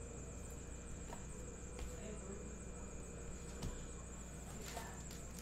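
Quiet room tone: a steady high thin whine over a low hum, with a few faint clicks from trading cards and a foil pack being handled.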